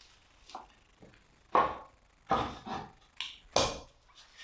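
A handful of sharp wooden knocks and clunks as pieces of timber are handled on a workbench. The loudest come about a second and a half in and again near the end.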